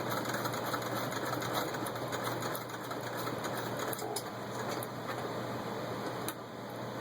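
1895 Singer VS2 vibrating-shuttle sewing machine stitching through six layers of denim, its handwheel turned by hand, with a steady rapid clatter of the needle bar and shuttle mechanism.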